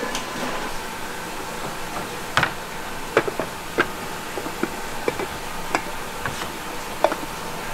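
Earthenware clay pots clinking and knocking against each other as they are stacked by hand, several short, irregular knocks with a brief ring, over a steady factory hum.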